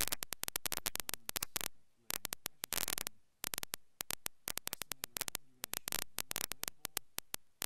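Rapid, irregular clicking, several sharp clicks a second, some in clusters that fade away.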